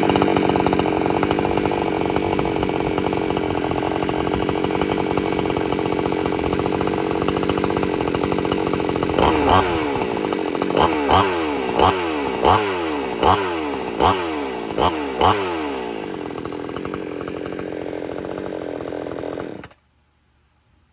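A warmed-up two-stroke chainsaw idling after a one-pull start. About halfway through it is revved in a string of short throttle blips, then drops back to idle and cuts off abruptly near the end.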